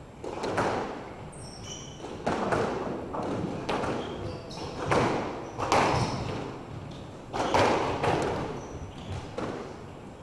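Squash rally: the hard rubber ball smacking off rackets and the court walls about once a second, each hit echoing in the court, with short high squeaks of court shoes on the wooden floor between hits.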